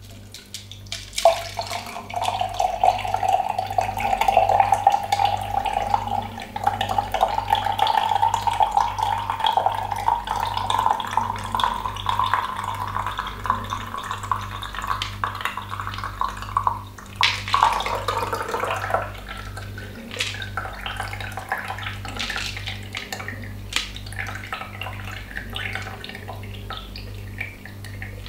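Shaken drink poured from a cocktail shaker through a fine strainer into a champagne flute: a steady trickling stream whose pitch rises slowly as the glass fills. About two-thirds of the way through it breaks off, and thinner, uneven trickles and drips follow.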